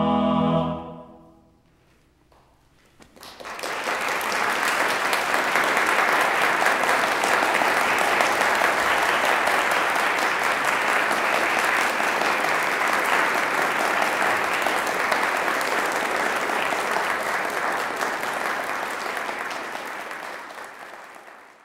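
Choir, chamber organ and strings end on a held final chord that stops about half a second in. After about two seconds of quiet an audience applauds steadily, the applause fading out near the end.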